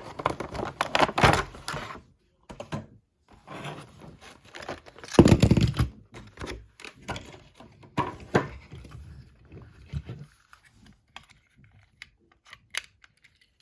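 Plastic blister packaging and cardboard being crinkled, pulled and torn open by hand, with irregular crackles and clicks. The loudest rustle comes about five seconds in, and the last few seconds hold only sparse small clicks.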